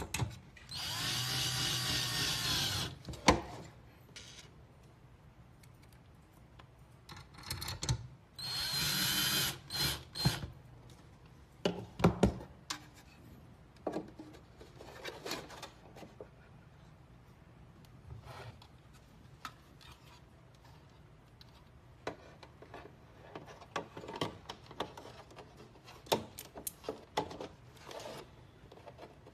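Cordless drill driving screws into a plastic wall back box, in two runs of about two and a half seconds and a second and a half. Then scattered short clicks and knocks of plastic parts being handled and pressed into place.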